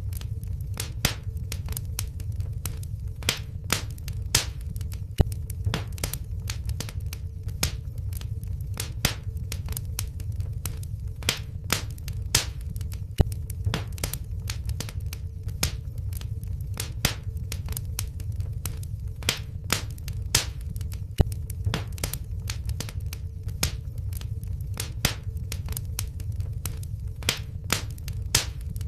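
Wood fire crackling in a fireplace: frequent sharp irregular pops and snaps over a steady low rumble of the flames, with a faint steady hum underneath.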